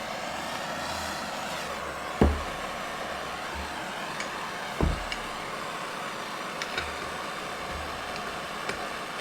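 Parts and tools clunking while a sand rail's transaxle is being assembled: two sharp knocks about two and five seconds in, then a few light clicks, over a steady background hum.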